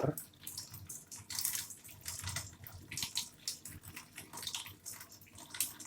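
Aqua AQW-88DD single-tub washing machine filling at the start of its automatic cycle: water splashes unevenly into the drum from the inlet.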